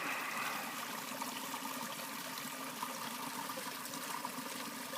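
Steady rush of running water, with a few faint ticks.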